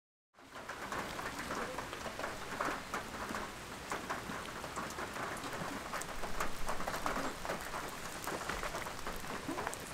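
Rain falling steadily on waterlogged grass and puddles: an even hiss of drops with many small ticks, starting abruptly just after the beginning.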